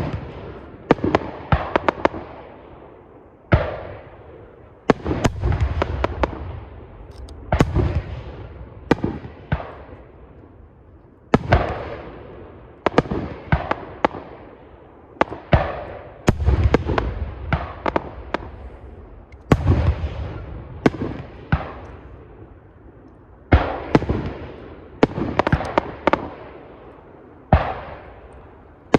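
Aerial fireworks shells bursting in quick succession, sharp bangs in clusters every second or so, the bigger ones followed by a deep booming echo rolling off the hillside.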